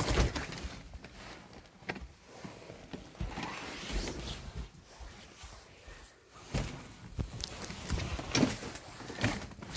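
Footsteps with irregular knocks and scuffs as someone moves quickly through an old house, with its small-room echo.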